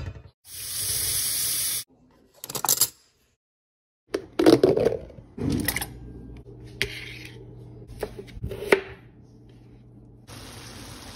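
Kitchen handling sounds: a few sharp knocks and clicks of containers and utensils set down on a counter and cutting board, with two short stretches of steady hiss and a low steady hum under the second half.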